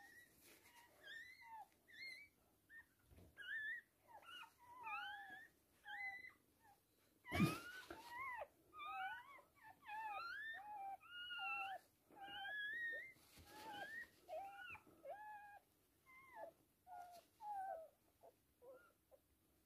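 Newborn toy poodle puppy crying in a continuous string of short, high squeaks, each one sliding up and down in pitch. About seven seconds in there is one brief loud handling noise.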